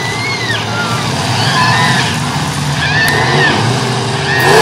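Several derby trucks' engines running in the dirt arena, a steady low rumble, with people in the crowd shouting over it.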